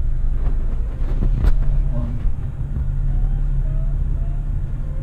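Four-wheel-drive vehicle running over a rough ranch track: a steady low rumble, with a couple of sharp knocks about a second and a half in.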